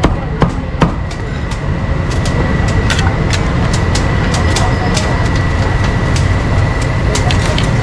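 Busy street food stall: a steady low rumble with irregular clicks and knocks of utensils, two sharper knocks near the start, and a thin steady high-pitched tone underneath.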